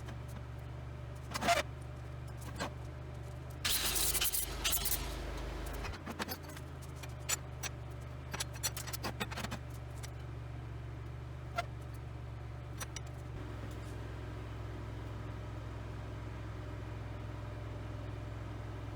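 A steady low motor hum, with scattered knocks and clinks and a brief clattering rustle about four seconds in.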